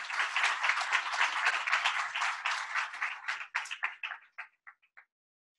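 Audience applauding in a room, the clapping thinning to a few scattered claps and stopping about five seconds in.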